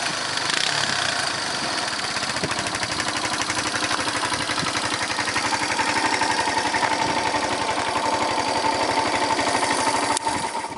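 Yamaha SR125's single-cylinder four-stroke engine idling with a steady, even beat, then cut off near the end when it is switched off at the handlebar.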